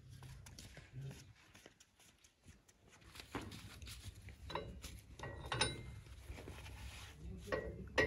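Faint clinks, knocks and rubbing of a rubber strap being fastened to a mini tractor's rear drawbar and linkage, with one light ringing metal clink about five and a half seconds in.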